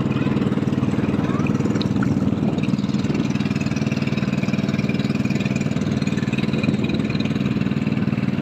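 Small motorboat's engine running steadily as the boat moves along.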